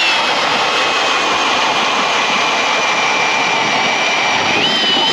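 Power ice auger drilling a hole through lake ice: a loud, steady motor whine with the churn of the cutting blades. The pitch sags a little as the blades bite, climbs again near the end, then cuts off.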